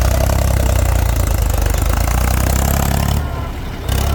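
Diesel engine of heavy digging machinery running steadily, loud and low-pitched, briefly dropping in level about three seconds in before coming back.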